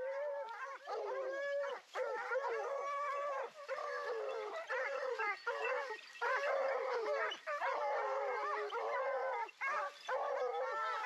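A pack of Porcelaine hunting hounds baying together, many voices overlapping without a break: the cry of a pack running a wild boar's scent.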